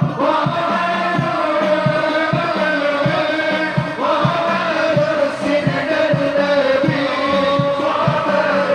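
Group singing of sholawat in unison, with long held notes, over a steady percussion beat, typical of frame drums (rebana/terbang).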